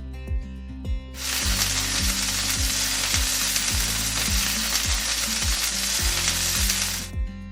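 Food sizzling in a hot frying pan; it starts about a second in and stops abruptly shortly before the end, over background music with a steady beat.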